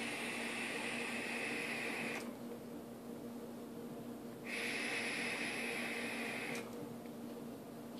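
Two steady hisses, each about two seconds long, from a vape hit on an Omega rebuildable dripping atomizer with a 0.2-ohm sub-ohm build. Air is drawn through the airflow over the firing coil. The second hiss starts about four and a half seconds in.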